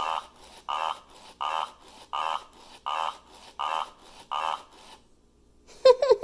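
Furby toy's electronic voice repeating the same short pitched sound about seven times, one every three-quarters of a second. After a brief pause, a rougher, broken vocal sound begins near the end.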